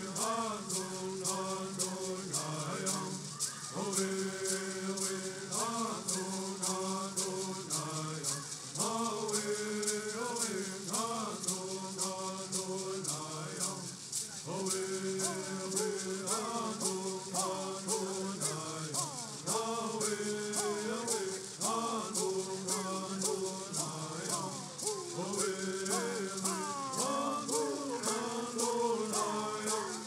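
Southern California bird songs: a group of men singing in unison to the steady beat of shaken gourd rattles.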